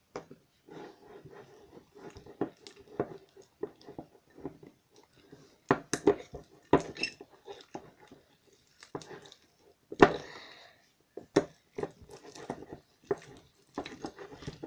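Metal spoon stirring thick white-glue slime in a glass bowl: irregular clinks, knocks and scrapes of the spoon against the glass as the sticky mixture is worked, with a sharper knock about ten seconds in.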